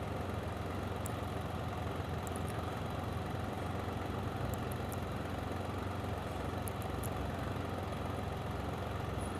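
Can-Am Spyder three-wheeled motorcycle's three-cylinder engine idling steadily.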